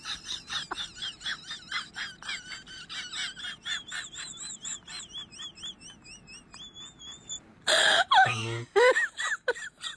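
Golden retriever whining in a high, wavering pitch over rapid short breaths. About eight seconds in there is a loud sudden noise, followed by lower, choppier vocal sounds.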